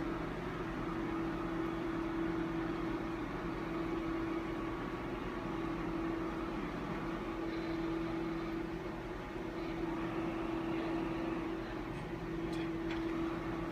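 Drive motor of a Siemens E.CAM gamma camera's imaging bed running with a steady hum as the bed is raised.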